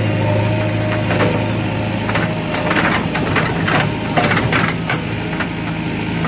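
JCB 3DX backhoe loader's 49 hp diesel engine running steadily, with a quick series of short knocks and clatter through the middle of the stretch.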